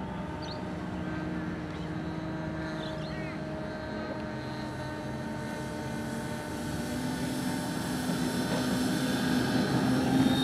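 The four electric motors and propellers of a large-scale RC Hercules model plane, a steady hum of several tones with propeller noise, getting louder over the last few seconds.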